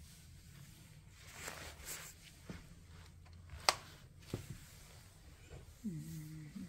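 Faint handling noises over a low steady hum: a brief rustle, then a few sharp clicks, the loudest one near the middle. Near the end comes a short low-pitched sound that rises and falls.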